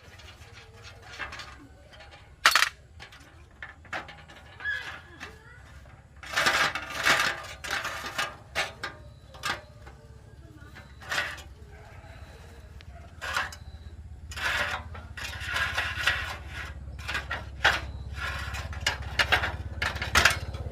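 Metal tools and parts clinking and knocking at irregular intervals, over a steady low hum.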